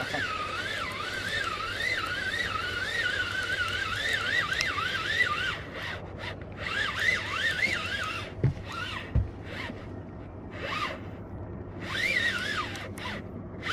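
Trolling reel being cranked to bring in a hooked striped bass, its gears giving a wavering whine that rises and falls with each turn of the handle, with brief pauses. Two dull knocks come partway through.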